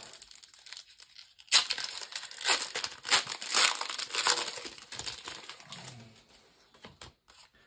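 Foil booster-pack wrapper crinkling and tearing as a trading-card pack is handled and torn open. The crinkling starts about a second and a half in and dies away near the end.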